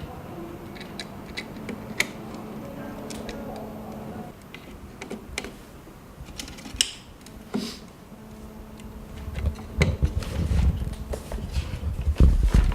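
Small sharp clicks and knocks of wire connectors being plugged into a circuit board and handled, over a faint steady hum that stops about four seconds in. Heavier low bumps and knocks come in the last few seconds.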